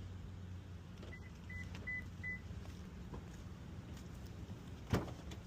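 Four short, evenly spaced electronic beeps from store checkout equipment, such as a scanner or card terminal, over a steady low store hum, with a single sharp knock near the end.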